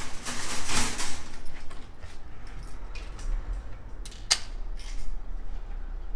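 Metal shopping cart rattling, with a few sharp clicks as it is returned to the cart row and its coin-deposit lock is worked.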